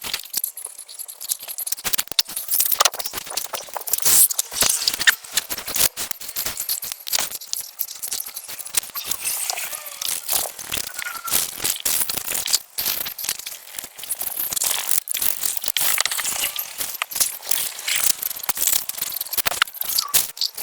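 A chemical wipe being scrubbed back and forth over an oxidised plastic headlight lens: rapid, irregular, crinkly scratching and rubbing.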